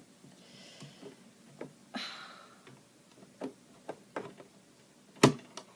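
Handling sounds at a home sewing machine: scattered light clicks and a brief rustle of fabric, with one sharp click about five seconds in. These are the sounds of fiddling with fabric and machine parts while thread clogs under the work, not of the machine sewing.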